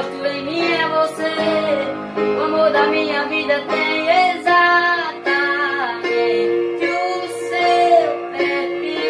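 A boy's high singing voice, with held, bending notes, over Yamaha electronic keyboard accompaniment.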